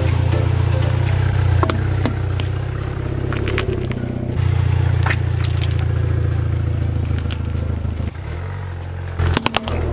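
Car engine running with a steady low hum as the car rolls slowly forward, with scattered crackles and clicks under the tyre as it rolls over and squashes spiky rubber squishy balls. A quick cluster of sharp cracks comes near the end.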